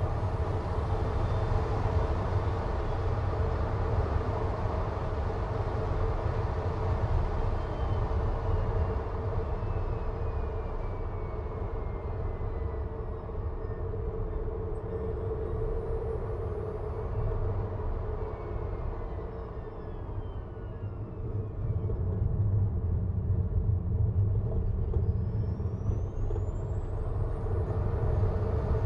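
Tesla Model 3 Performance on the move: steady tyre and road noise with a low rumble and a constant hum, and no engine sound. Faint high whines slide up and down in pitch, one rising near the end. The noise eases off around two-thirds of the way through and then comes back louder.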